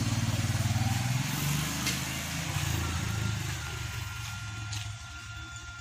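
Honda Supra X 125's single-cylinder four-stroke engine running as the moped pulls away and rides off, its note fading steadily into the distance. The engine has its compression back after the camshaft decompressor and valves were renewed.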